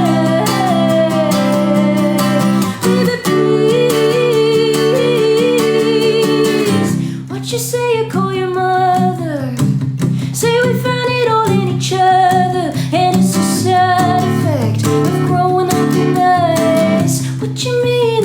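A woman singing with an acoustic guitar strummed alongside. The first few seconds hold long notes that waver in pitch, and from about seven seconds in she sings shorter phrases.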